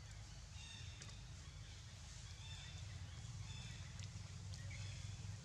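Quiet outdoor ambience: a steady low rumble with scattered short, faint, high chirps and an occasional light click.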